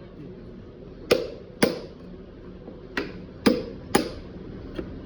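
Hammer blows in a battery repair workshop: five sharp strikes, two about a second in and three more from about three seconds in, each with a short ring.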